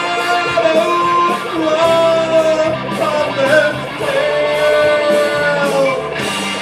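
Live rock music: a Stratocaster-style electric guitar plays lead lines with long held, bending notes.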